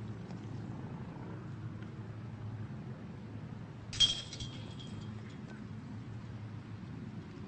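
A single sharp clink with a brief ringing tone about four seconds in, over steady low background noise.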